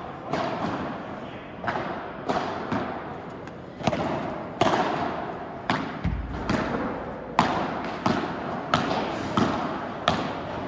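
Padel rally: the ball being struck by the rackets and bouncing off the court and walls, a quick run of sharp pops about every half second, each with a short echo.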